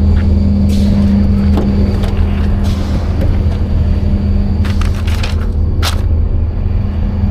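Cargo van engine idling with a steady low hum, with a few short light clicks and knocks over it.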